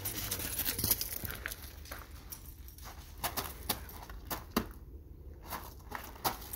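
Footsteps crunching on gravel: light, irregular crunches and clicks over a low steady rumble.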